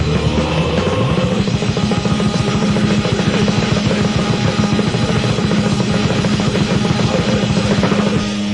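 Loud, distorted heavy metal: fast, dense drumming under a held low electric-guitar note that slides up about a second in. Near the end the drums stop and the guitar rings on alone.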